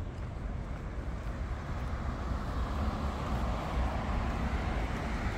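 Road traffic noise over a steady low rumble, with a vehicle's tyre noise building to a peak about halfway through and then easing off.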